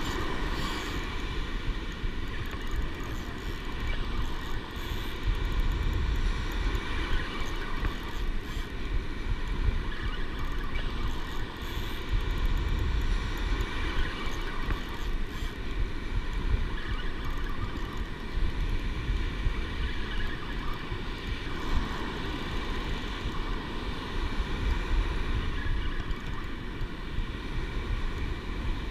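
Wind buffeting the microphone over breaking surf, with a faint steady whine running through it.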